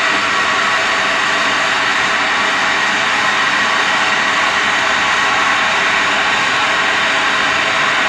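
A kettle boiling: a steady rushing hiss and roar of water at the boil, even in level throughout.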